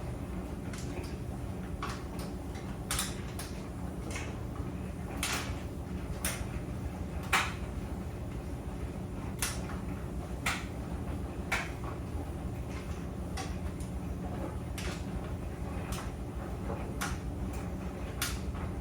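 Clothes dryer running: a steady low drum rumble with irregular clicks and knocks as the load tumbles in the drum.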